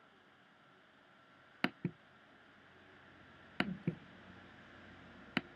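Sharp clicks of a computer mouse: two close together a little under two seconds in, two more just past the middle, and a single click near the end, over a faint steady hiss.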